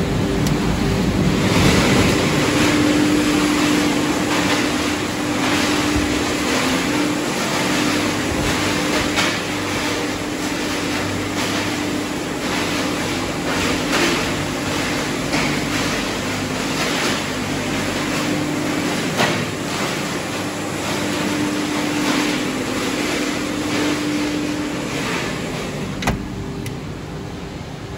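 Machinery of a pellet production line running: a steady mechanical hum with one constant tone under it, and frequent clicks and rattles throughout.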